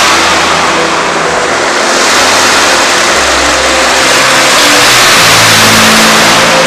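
Loud, steady rush of sea surf, with low humming tones underneath that shift in pitch every second or so.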